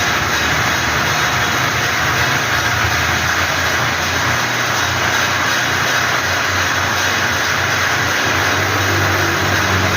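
Plastic mulch fold-separating machine running steadily, a low hum under an even mechanical rushing noise.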